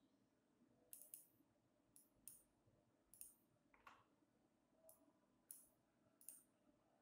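Faint computer mouse button clicks, about nine of them at irregular spacing, some in quick pairs.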